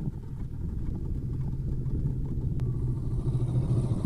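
Motorcycle engine running steadily at low revs, a low even hum with rumble that slowly grows a little louder.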